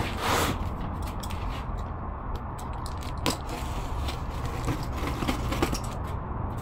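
A knife slitting the packing tape on a cardboard box, with hands scraping and knocking on the cardboard in short sharp clicks, the loudest just after three seconds, over a steady low hum.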